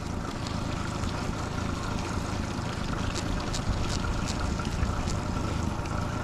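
Honda 30 four-stroke outboard running steadily at slow trolling speed, with wind and water noise over the boat. A few faint ticks come in the middle.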